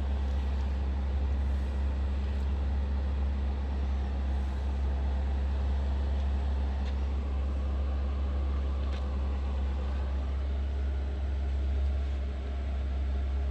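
Steady low hum that stays unchanged throughout, with a few faint clicks over it.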